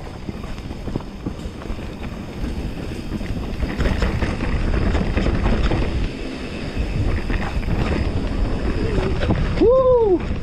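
Wind rushing over a handlebar-mounted action camera as a mountain bike rides a dirt singletrack, with the bike rattling over bumps; louder from about four seconds in. Near the end a short tone rises and falls.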